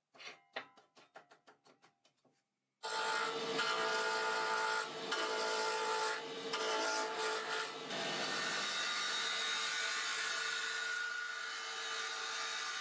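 About a dozen quick light taps with a slight ring. Then, about three seconds in, a wood lathe comes in abruptly, loud and steady, with a tool cutting into a spinning beech blank over a steady machine hum.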